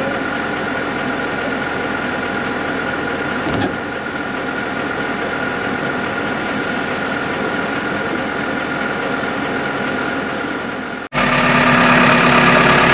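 Tractor engine running steadily. About eleven seconds in, the sound cuts abruptly to a louder, closer engine.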